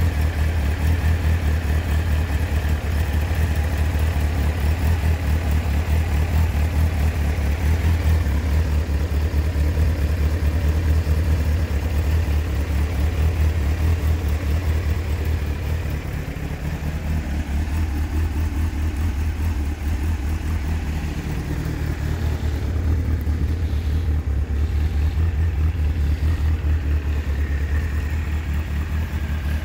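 Honda CBF600N's inline-four engine idling steadily, with a slight change in its note around the middle.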